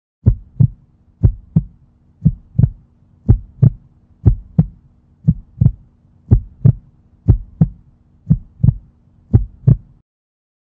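Heartbeat sound effect: ten lub-dub double thumps about once a second over a low steady hum, cutting off suddenly near the end.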